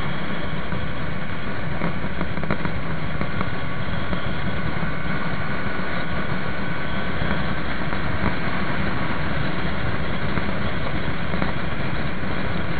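Motorcycle engine and exhaust running steadily under way, a strong exhaust rumble at an even pitch and level.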